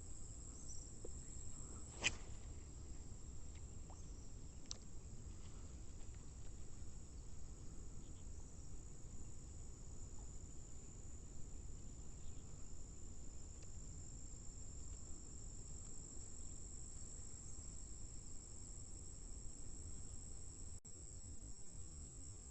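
Steady high-pitched chorus of insects, likely crickets, over a low rumble, with a single sharp click about two seconds in.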